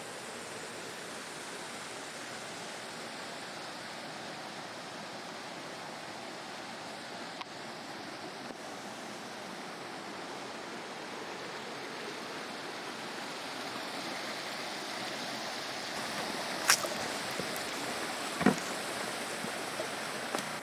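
Steady rush of water over rock from a stream cascade or small waterfall, swelling slightly over the last few seconds, with two sharp clicks about two seconds apart near the end.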